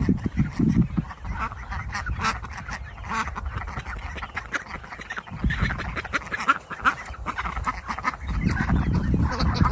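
A flock of young ducks quacking over and over in short, overlapping calls, with a low rumble at the start and again near the end.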